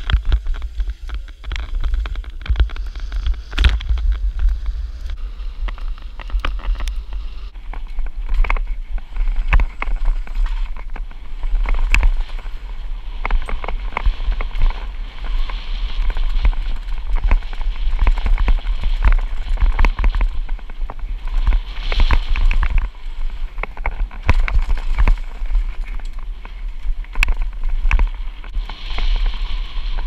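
Downhill mountain bike descending a rough dirt and gravel trail: heavy wind rumble on the camera microphone, tyres crunching over the loose surface, and the bike rattling and knocking over rocks and bumps throughout.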